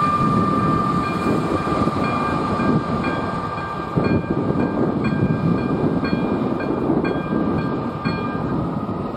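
Passenger train rumbling past over a level crossing, with a steady high whine above the rumble. The crossing's electronic warning bell dings about twice a second and stops near the end.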